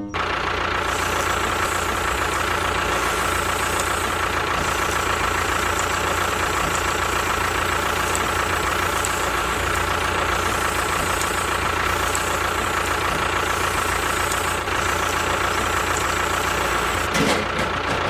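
A model tractor's engine running steadily, a constant even drone with a steady hum and no change in speed.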